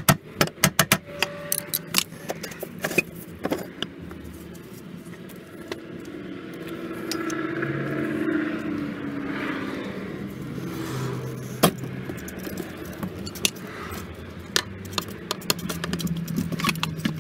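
Clicks, knocks and rattles of hand work on a BMW E46's fuel pump assembly in the tank opening: a metal rod and the plastic pump housing clatter against the tank. There is a rapid run of clicks in the first second, and scattered knocks follow.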